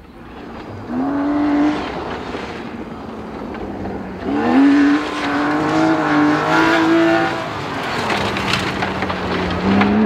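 Rally car engine (BMW E30) at high revs on a gravel stage. The revs rise about a second in, climb sharply again about four seconds in and hold near the top for about three seconds, then rise once more near the end.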